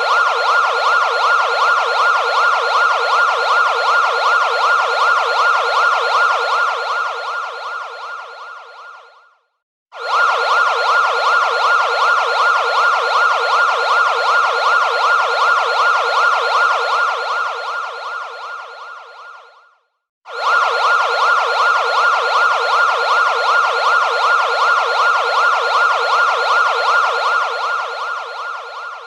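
Emergency alert system alarm: a fast-warbling siren tone sounding in three long blasts of about nine seconds each, every blast fading away over its last few seconds before a short break and a fresh loud start.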